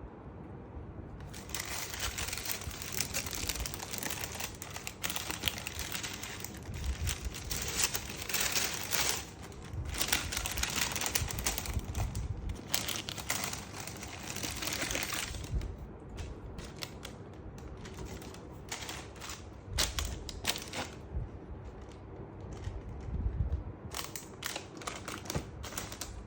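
Shoebox packaging paper crinkling and rustling as it is handled, dense and continuous from about two seconds in until about fifteen seconds, then giving way to scattered rustles and sharp taps.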